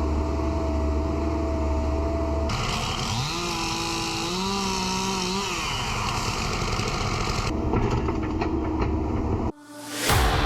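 Engines of power equipment in a run of short cut-together clips: first a steady hum, then an engine revving up, holding and dropping back down. Near the end the sound briefly drops out and electric-guitar music starts.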